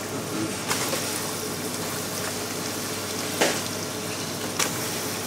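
Steady sizzle of vegetables sweating in a stockpot, broken by a few short knocks as fish heads and bones are dropped in.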